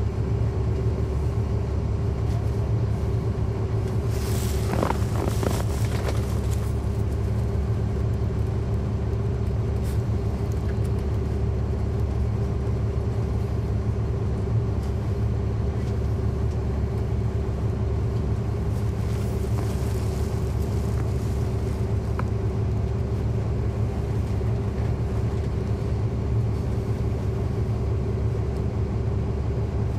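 Caterpillar C13 ACERT diesel engine of a NABI 416.15 transit bus running steadily, heard inside the cabin from a rear seat as a constant low rumble with a steady hum. A brief hiss comes about five seconds in.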